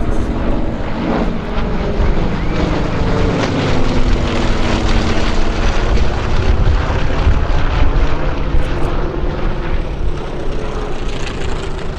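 Three WWII radial-engine warbirds flying past overhead in formation: a steady engine and propeller drone that grows louder through the middle and eases off near the end.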